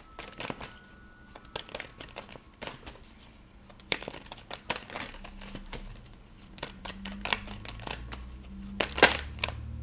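Deck of tarot cards being shuffled by hand: irregular soft slaps and rustles of cards, with sharper strokes about four seconds in and again near the end.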